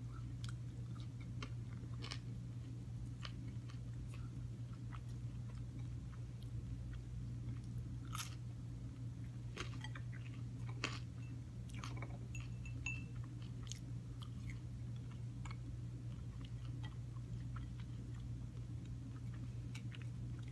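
A person chewing and biting into a Tofurky broccoli and cheddar pocket with a hardish crust, giving scattered small crunchy clicks. A steady low hum runs under it.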